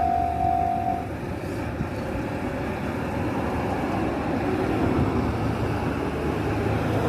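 Railway level crossing alarm giving a steady tone that stops about a second in, over the continuous rumble of an Enoden electric train running past the crossing.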